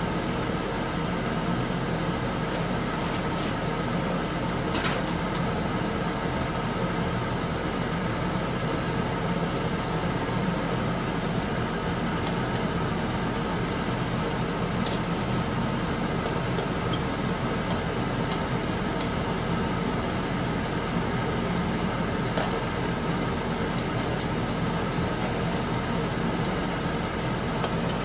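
A steady fan-like drone over beef fat simmering in water in a wok, with a few faint clicks from kitchen scissors cutting the fat.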